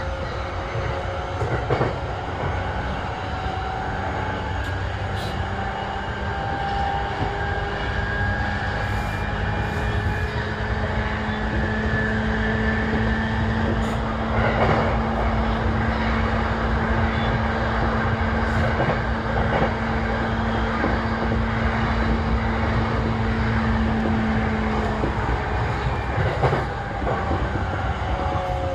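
Interior running sound of an E233-7000 series electric train's motor car under way: a steady rumble of wheels on rail with the whine of the traction motors and inverter, whose tones drift slowly in pitch. A few louder clacks come from the wheels over the track.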